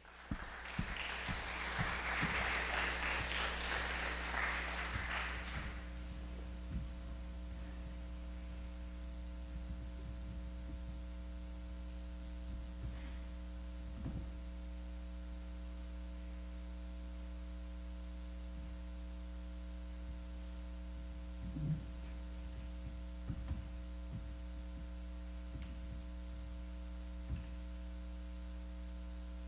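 Audience applause that dies away about five seconds in, then a steady electrical mains hum in the quiet hall, with a few faint knocks before the piano begins.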